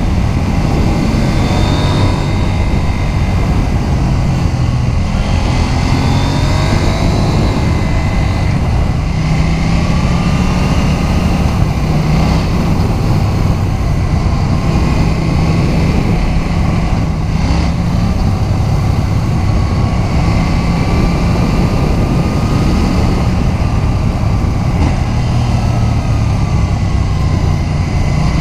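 KTM 790 Duke's parallel-twin engine running at road speed, its note rising and falling with the throttle.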